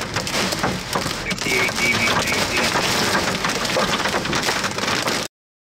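Heavy storm rain pelting a vehicle's windshield and body, heard from inside the cab as a dense crackle of drops and small hits. It cuts off suddenly near the end.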